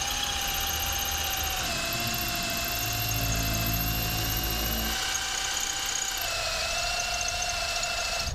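Cordless drill boring holes through a half-inch aluminum plate: a steady motor whine with the bit cutting, the pitch sagging slightly about two seconds and six seconds in as the bit bites.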